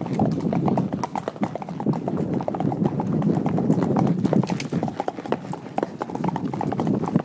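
Horse's hooves clip-clopping in a quick, steady run of hoofbeats on a packed dirt trail.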